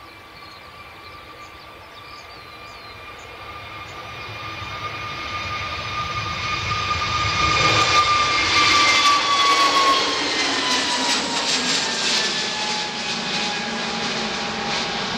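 Airbus A321neo jet with CFM LEAP-1A turbofans at take-off power, lifting off and climbing away. The engine noise builds steadily to its loudest about eight seconds in, with a whine whose pitch drops as the jet passes and climbs out.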